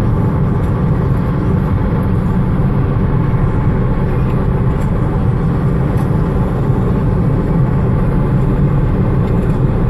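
Steady low rumble of vehicle road and engine noise, with a few faint short clicks.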